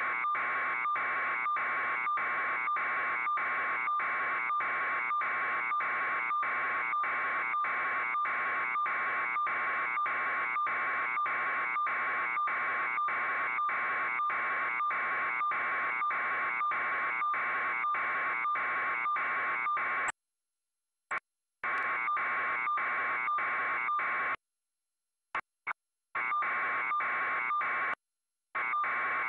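Harsh electronic buzz on a raw satellite news feed's audio, a steady tone pulsing evenly. It cuts out several times after about twenty seconds.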